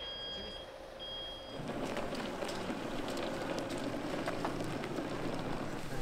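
An electronic device beeping about once a second, three high beeps about half a second long, over a faint steady hum. Then the beeps stop, and open-air ambience with scattered clicks and knocks follows.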